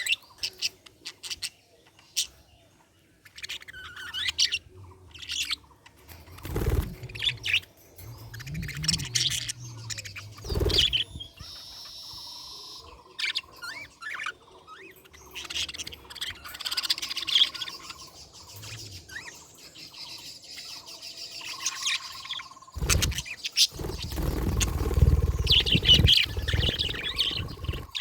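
Budgerigars chirping and warbling in short, high bursts throughout. Low thuds come twice early on, and a louder low rumble runs under the chirping near the end.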